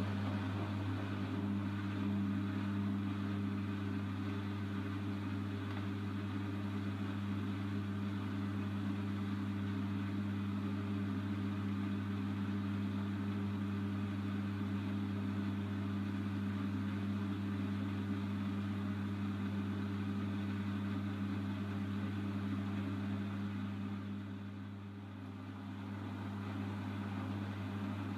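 Bosch WAY32742 front-loading washing machine spinning its drum at a steady speed, the laundry pressed against the drum wall; a steady low motor hum that dips briefly near the end.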